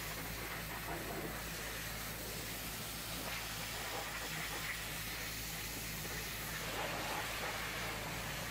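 High-pressure hot-water washer jet spraying against a minibus's side panels and window glass: a steady hiss over a steady low hum.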